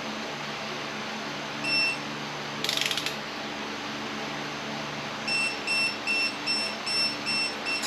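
Electronic torque wrench in use on engine bolts: one short beep, a brief burst of ratchet clicks about three seconds in, then rapid beeping, about three beeps a second, from about five seconds in as the bolt reaches its set torque.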